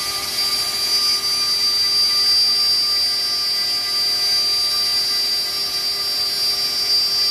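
Steady rush of a shop vacuum, with the high, even whine of a CNC router's spindle running.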